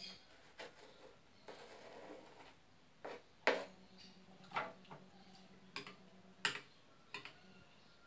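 Kitchen knife chopping a block of rapadura (raw cane sugar) on a plastic cutting board: a series of separate, irregularly spaced knocks and scrapes, about eight in all.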